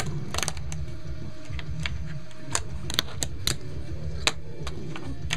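Fingerboard clacking as fingers flick and land it through tricks: a string of irregular sharp clicks, over a steady low hum.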